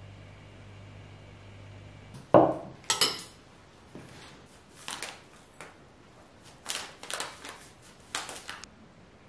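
A dish is set down on a wooden board with a loud knock, then a metal spoon clinks and scrapes against a ceramic bowl in short, scattered bursts as something is stirred in it.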